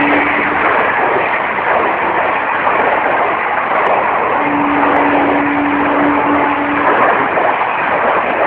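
Passenger coaches of a fast train behind a WAG-5 electric locomotive rushing past at close range: a loud, continuous rush of wheels on rail and air. The locomotive's horn cuts off just after the start, and a steady tone sounds for about two seconds in the middle.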